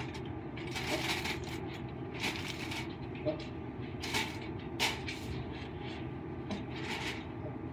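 Aluminum foil crinkling in short bursts as it is pressed and crimped around the rim of a cooking pot, over a steady low background hum.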